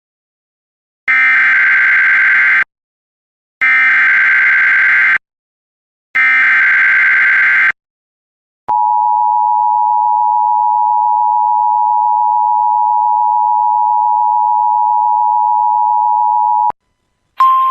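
Emergency Alert System header: three identical bursts of screechy digital data tones, each about a second and a half long, then the steady two-tone attention signal held for about eight seconds. It announces a severe thunderstorm warning. Another single tone starts just before the end.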